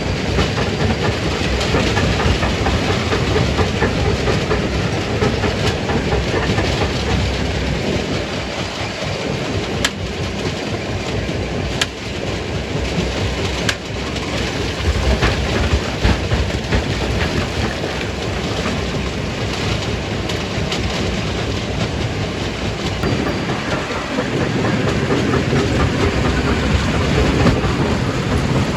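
Stone crushing machine running, with rock rattling and grinding through it in a dense, continuous clatter over a low rumble, and a few sharper cracks midway.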